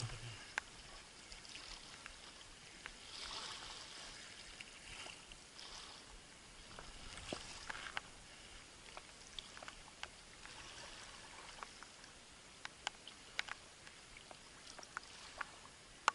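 Small waves lapping and splashing against the bank, a steady faint wash with scattered sharp ticks at irregular moments.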